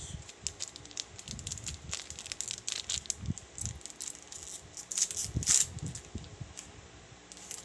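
A trading-card pack's wrapper crinkling and rustling as it is handled, with scattered sharp crackles, loudest about five seconds in.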